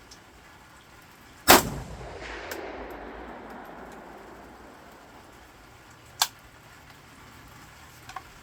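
AKM-pattern rifle firing a single 7.62×39 mm shot about a second and a half in, its report echoing away over the next two seconds. A shorter, quieter crack follows about six seconds in.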